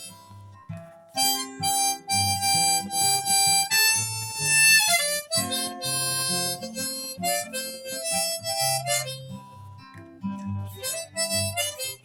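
Harmonica solo in a folk country blues instrumental break, playing held notes with one bent down about halfway through, over a strummed acoustic guitar.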